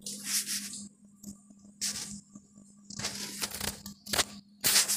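Metal spatula scraping around a metal karahi as it stirs chopped onions frying in oil, in several scratchy strokes, the loudest near the end, over a steady low hum.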